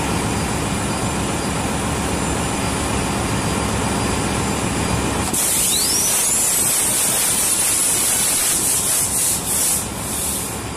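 Ship's auxiliary diesel engine being turned over by its freshly overhauled starting air motor: a loud, steady rush of air and mechanical rumble. About halfway through, the low rumble drops away, leaving a high hiss with a whistle that rises quickly in pitch.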